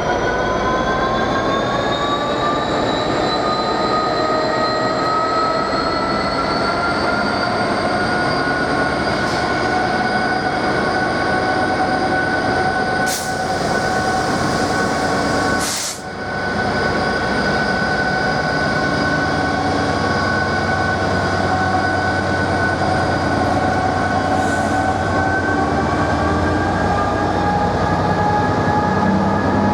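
A train accelerating: a whine of several tones rises in pitch over the first several seconds and then holds steady, over the rumble of running on the rails. There are two brief breaks in the sound about halfway through.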